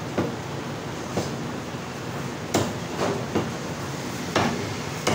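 Butcher's cleaver chopping mutton on a round wooden chopping block: about six sharp, irregularly spaced chops over steady background noise.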